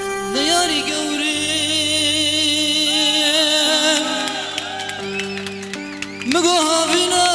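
Live Kurdish wedding music: a singer holds long, wavering notes over a steady instrumental backing, sliding into a new phrase near the start and again after a brief dip near the end.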